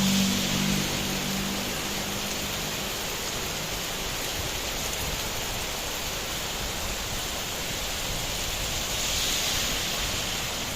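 Steady heavy rain falling, an even hiss. A low hum is under it at the start and fades out within the first three seconds.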